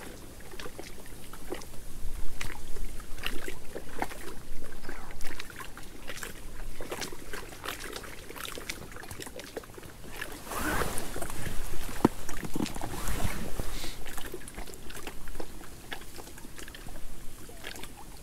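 Irregular splashes, drips and sharp clicks of a landed fish and fishing tackle being handled in and around a wet landing net.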